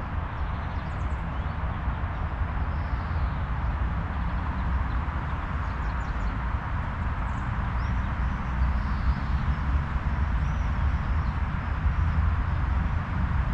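Steady outdoor background noise with a fluctuating low rumble, and a few faint, high bird chirps scattered through it.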